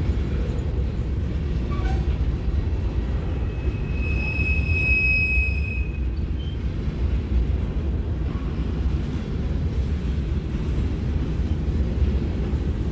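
Empty covered hopper cars of a unit grain train rolling past with a steady low rumble of wheels on rail. A high steady squeal, likely from the wheels, sounds for about two seconds starting around three and a half seconds in.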